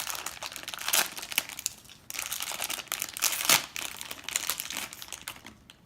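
Plastic packaging crinkling and crackling as a small toy package is opened by hand. The crinkling thins out near the end.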